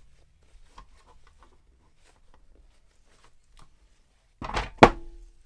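Light rustling and small clicks of hands handling a cloth and plastic parts, then, about four and a half seconds in, a loud knock and a sharp clack with a brief metallic ring as the Fieldpiece SMAN 460 refrigerant gauge manifold, in its plastic case with brass valve fittings, is handled and knocked against the wooden bench.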